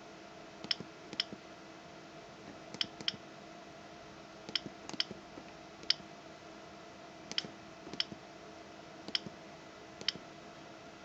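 Keypad of a Gigaset SL400H cordless DECT handset clicking as a phone number is keyed in. There are about eleven short, sharp clicks at irregular spacing, several in quick pairs.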